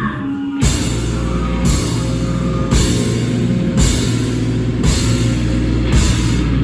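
Live rock band playing a loud, heavy passage with full drum kit, a crash cymbal struck about once a second. The band comes in hard about half a second in.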